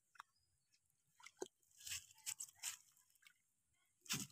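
A hand splashing and sloshing through shallow muddy water: a string of short, irregular splashes, the loudest near the end.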